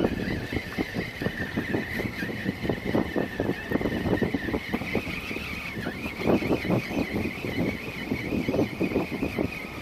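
Electric trolling motor running with a steady high-pitched whine that wavers and steps up a little about six seconds in, over choppy water sloshing and splashing.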